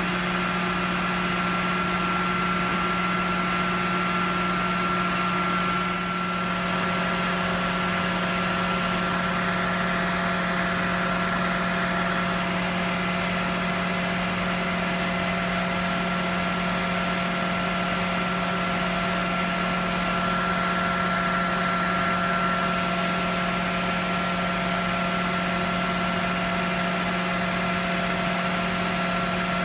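Steady mechanical drone of shop machinery: a constant low hum with a thin steady whine above it, unchanging apart from a slight shift about six seconds in.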